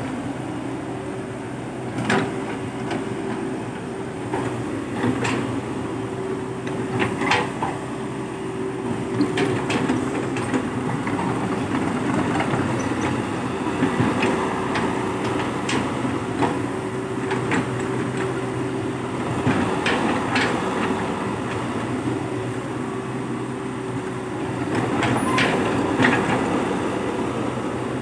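Komatsu PC120-5 hydraulic excavator running steadily while digging, its diesel engine humming with a constant steady tone. Sharp metal clanks and knocks from the bucket and boom every few seconds.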